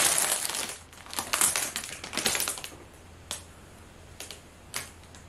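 Clear plastic bag crinkling and crackling as a garment is pulled out of it. The crackling is dense for the first second, comes in bursts for a couple more seconds, then thins to a few single crackles.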